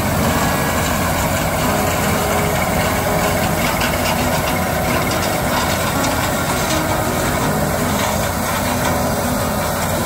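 Gleaner F2 combine running steadily under load while harvesting corn, a continuous heavy engine and machinery drone.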